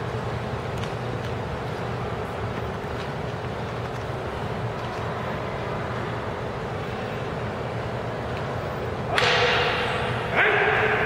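Two loud kiai shouts from sword practitioners performing a paired form, about a second apart near the end, each ringing out in a large hall, over a steady background hum.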